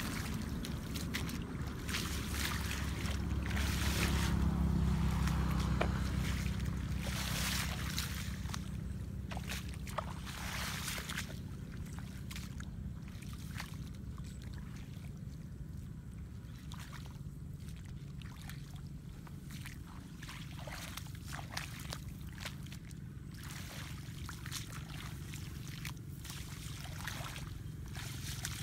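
Steady low rumble of wind on the microphone, heaviest in the first several seconds, with scattered short rustles and clicks throughout.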